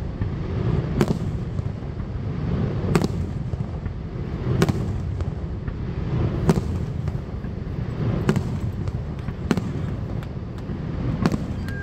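Aerial fireworks shells bursting overhead, seven sharp bangs about every one and a half to two seconds, over a steady low rumble.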